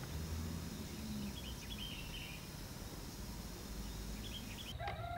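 Quiet outdoor ambience: a low steady rumble with a few faint bird chirps, one short run of chirps about a second and a half in and a couple more near the end.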